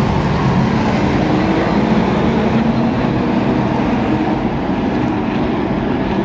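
A field of super late model race cars' V8 engines running at speed around a paved oval, making a loud, steady, unbroken din of many engines together.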